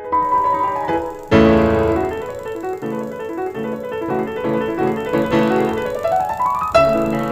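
Background piano music, struck notes with rising runs and a fuller chord about a second and a half in.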